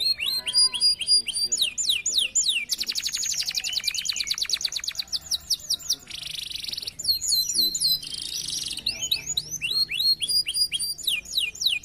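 Domestic canary song: a continuous, rapid string of phrases, with fast rattling trills of repeated notes, buzzy tours and runs of steeply falling whistled notes, changing every second or two.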